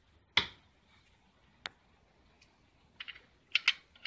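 A sharp click about half a second in, then from about three seconds in, quick clusters of small clicks and rattles as loose electrolytic capacitors knock against each other and a plastic tray while being picked through.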